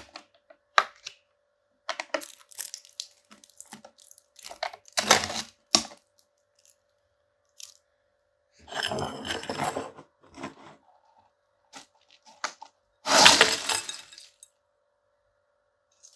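A Lay's Stax crisp canister being opened and emptied. There are scattered handling clicks and knocks, then stacked potato crisps slide out and rattle into a bowl in two crackling rushes, the louder one near the end. A faint steady hum runs underneath.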